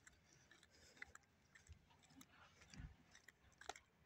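Near silence, broken by faint scattered clicks and a soft low thud about three quarters of the way through.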